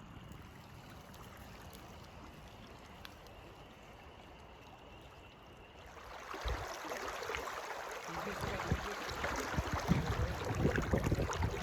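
Faint, even outdoor hush, then about six seconds in the rush of a creek's flowing water comes in and grows louder, with scattered low thumps on the microphone.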